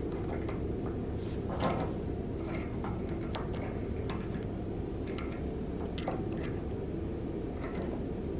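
Scattered light clicks and taps of a used connecting-rod bearing shell being fitted by hand into the rod cap, over a steady low hum.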